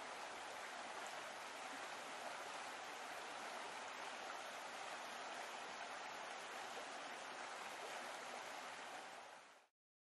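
Steady rush of water, an even hiss without rhythm, that fades out quickly near the end.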